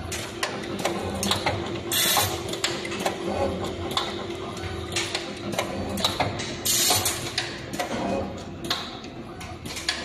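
Multicore wire stripping and cutting machine running: a steady motor hum with frequent sharp clicks and knocks from its feed and blade mechanism, and a few short, loud hisses.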